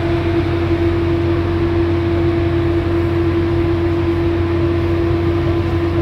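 Steady machinery hum aboard the frigate HNLMS Evertsen: a constant mid-pitched whine over a low drone, with an even hiss.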